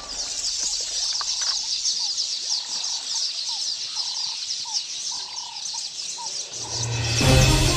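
Dense high chirping of many birds, with a few short clear whistled calls in the middle. Electronic music with a heavy low beat comes in about a second before the end.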